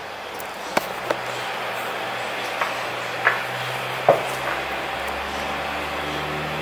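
A handful of short, sharp taps or clicks at uneven intervals over a steady low hum of room noise.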